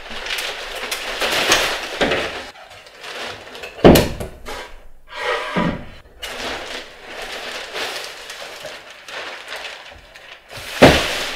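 A 185 cm Lencarta parabolic umbrella's fabric rustling and swishing as it is shaken out and opened, with a sharp snap about four seconds in as the canopy pops open. Softer rustles and knocks follow, then another loud knock near the end as it is handled and folded again.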